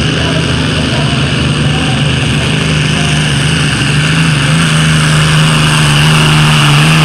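Modified pulling tractor's engine running flat out under load as it drags the pulling sled. Its pitch steps up a little about four seconds in and then holds steady.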